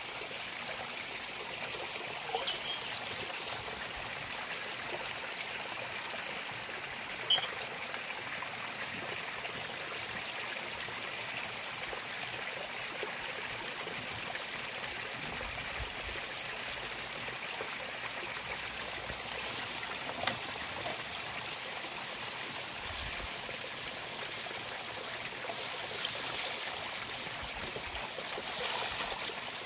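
Shallow stream trickling steadily over rocks, with a few sharp clinks of glasses and dishes being washed, and louder splashing near the end as a tray is rinsed in the water.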